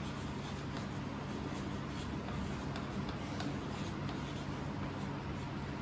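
Faint scratching and light tapping of styluses writing on two hand-held writing slates, over a steady low room hum.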